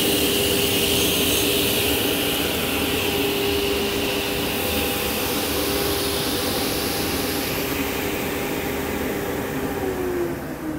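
Martin T60C sliding table saw running free after a cut, a steady hum with a hiss of spinning blade. About ten seconds in the motor is switched off and the hum begins to fall in pitch as the blade coasts down.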